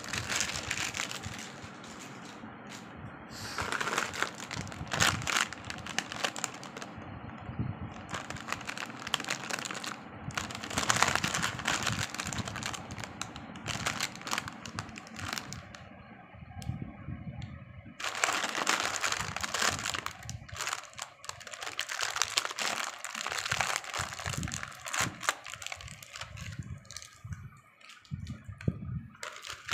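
Plastic snack packets crinkling as they are handled and opened by hand, in bouts with short pauses between.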